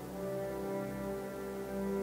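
Background music of slow, sustained chords.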